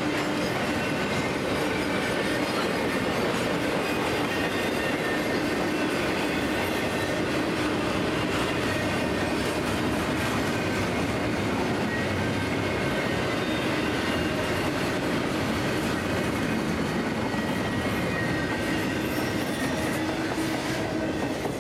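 Double-stack container freight train rolling past: steel wheels clattering on the rails with a steady, thin squeal, easing slightly near the end.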